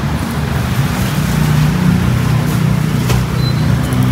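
Motor vehicle engine running with a steady low hum over street traffic noise. A brief faint high beep comes near the end.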